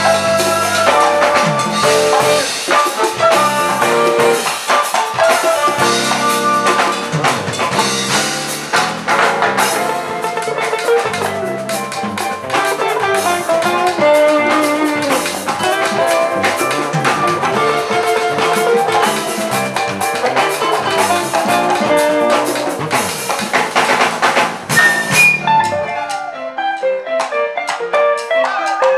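Latin jazz band playing live, with congas, timbales and drum kit driving the rhythm under bass, keyboards and horns. Near the end the bass and low end drop out, leaving a lighter passage of higher melodic lines over light percussion.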